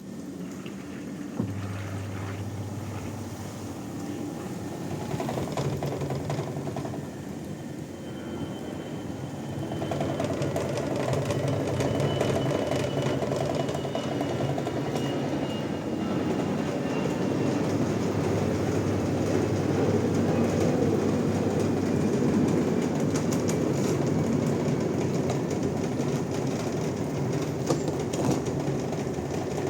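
Single-tub washing machine running on a universal replacement control module. Its motor hum starts about a second in and grows louder and busier about ten seconds in.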